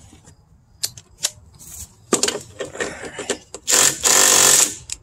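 Cordless impact driver hammering on the puller bolt in the centre of an Arctic Cat hex clutch. A few light clicks come first, then short stuttering bursts about two seconds in, then a loud run of hammering from near four seconds that stops just before the end. The hammering is driving the bolt against the crankshaft to shock the tightly preloaded clutch loose.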